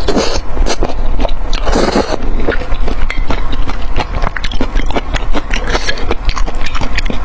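Close-miked eating: wet chewing with many quick smacking clicks, and one louder, longer mouth sound about two seconds in.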